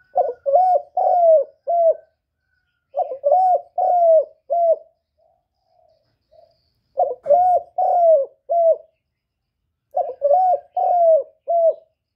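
Spotted dove cooing: four phrases of four or five notes each, a few seconds apart, with a few faint single coos between them.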